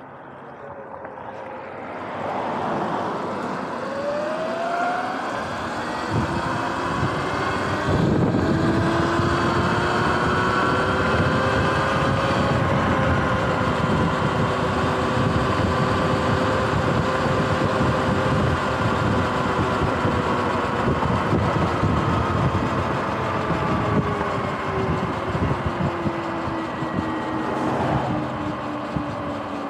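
Sur-Ron X electric dirt bike's motor whining, the pitch rising as it pulls away over the first few seconds, then holding steady at cruising speed and dipping slightly near the end as it eases off. Wind rushing over the microphone and tyre noise rumble underneath.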